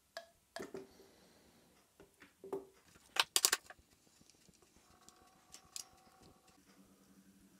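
Faint clicks and creaks from a screw pull-out test rig as the chain, hook and crane scale take up load, straining a 4 mm Turbo Gold screw in MDF face grain. A cluster of sharp clicks comes about three seconds in, and a faint steady whine about five seconds in.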